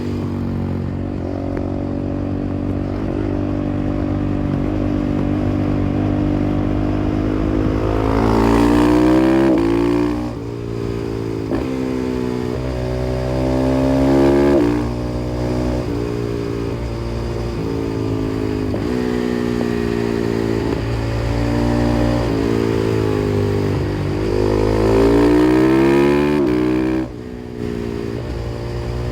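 KTM 500 EXC-F single-cylinder four-stroke motorcycle with an FMF exhaust, ridden hard: the engine note climbs in pitch on three strong accelerations, about a third of the way in, near the middle and near the end, and falls back between them as the rider shifts or rolls off. The sound dips briefly shortly before the end.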